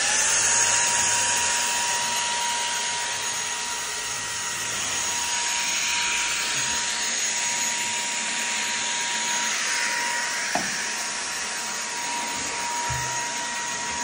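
Teqqo Powerstick Plus cordless stick vacuum running and sucking along the floor and skirting: a steady suction hiss with a high motor whine that spins up at the start and stops near the end. A single short knock about ten and a half seconds in.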